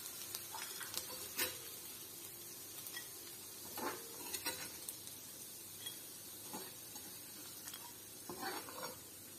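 Metal spatula knocking and scraping a few times in a cast-iron kadai while fried dried prawns are lifted out onto a plate, over a faint steady sizzle of hot oil.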